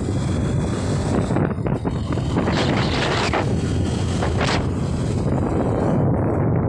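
Wind buffeting the microphone: a steady low rumble, with a few brief hissing gusts in the middle.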